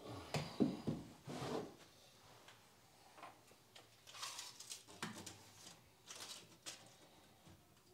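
Handling noises: a cluster of knocks and clicks in the first second and a half, then a few short rustling scrapes, as small hardware is picked out of a box and a cordless drill is put down on the plank floor.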